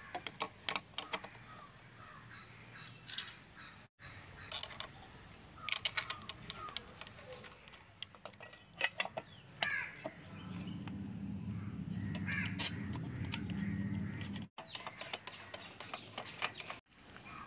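Clicks and metal knocks as the scooter's air filter housing and its fixings are handled and fitted back over the carburettor, with a screwdriver near the end. Birds call in the background, and a steady low hum joins about ten seconds in.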